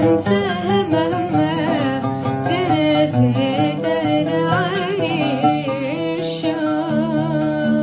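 A boy singing a wavering, ornamented melody while plucking an oud; near the end the voice falls away and the oud notes ring on.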